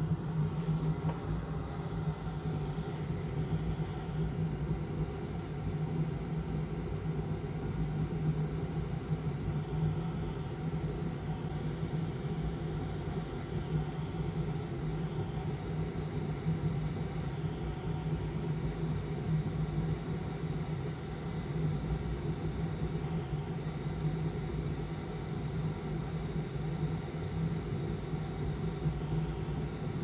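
Hot air rework station blowing steadily beneath a circuit board: a constant low fan hum with an even airy hiss, heating the solder to reflow a connector into place.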